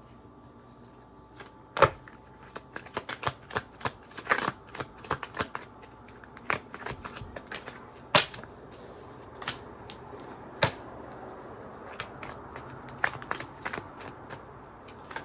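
Tarot cards being shuffled and handled: an irregular run of sharp snaps and taps, the loudest about two seconds in and again about eight seconds in.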